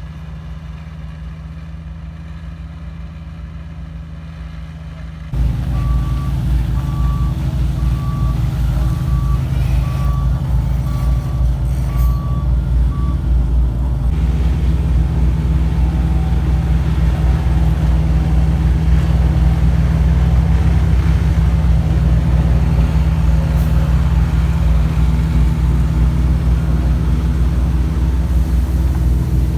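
Heavy diesel engine of road-construction machinery running steadily, becoming sharply louder about five seconds in. A reversing alarm beeps about once a second for several seconds, and later a second, fainter reversing alarm beeps for a few seconds.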